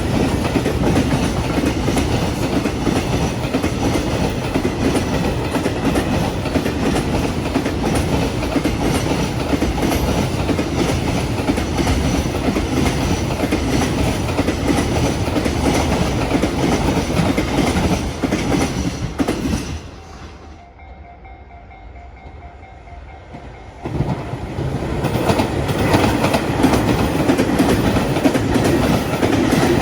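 A freight train running loudly past a level crossing, its wagons' wheels and running gear making a continuous rolling clatter. About two-thirds of the way through, the noise drops away sharply for about four seconds, then returns suddenly as the passing goes on.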